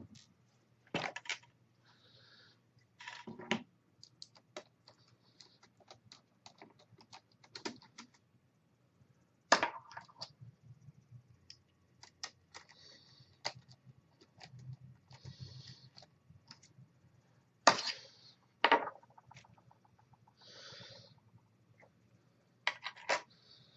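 Scattered clicks, taps and a few sharper knocks of small laptop parts being handled with a screwdriver: the screen's metal brackets and their screws. A low steady hum sits underneath.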